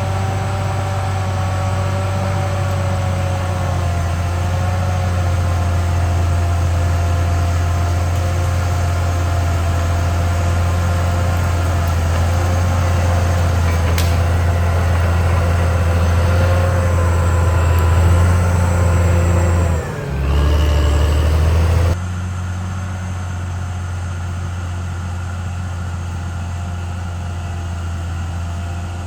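Diesel engine of a CAT D6R XL crawler bulldozer running steadily at work. Its note dips and shifts briefly about twenty seconds in, then the level drops suddenly a couple of seconds later.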